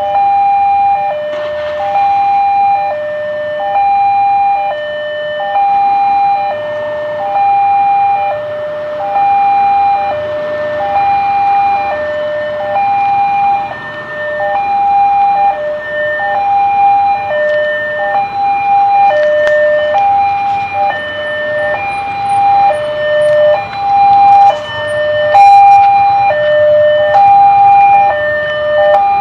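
Indonesian railway level-crossing alarm sounding its electronic two-tone warning. It alternates a higher and a lower tone, about one every second, steadily, with motorcycle and traffic noise underneath that grows louder in the second half.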